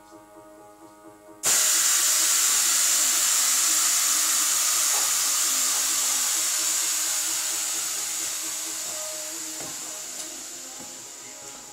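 Compressed air hissing through the air-spring suspension of a Suzuki off-roader: a loud hiss that starts suddenly about a second and a half in and then slowly fades away.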